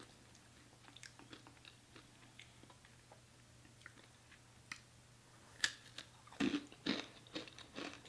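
Close-miked chewing: soft mouth clicks at first, then louder, sharper chews from about two-thirds of the way in, over a faint steady hum.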